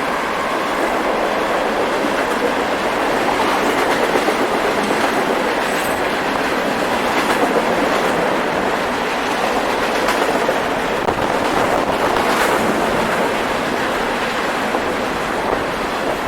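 A long empty coal hopper train rolling steadily past: a loud, even rumble of steel wheels on rail, with occasional sharp clicks as wheels cross rail joints.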